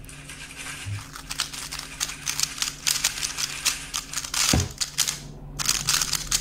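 A 3x3 speedcube being turned very fast in a speedsolve: a dense run of plastic clicking and clattering, with a brief pause about five seconds in before the turning resumes.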